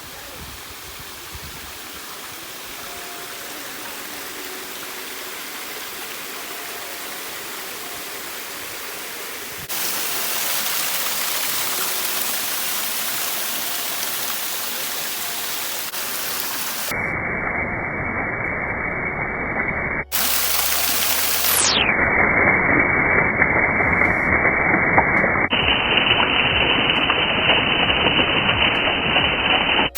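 Water rushing down a waterfall: a steady, loud rush of noise. It changes abruptly in level and brightness several times, with a very brief dropout about two-thirds of the way in, and is louder in the later part.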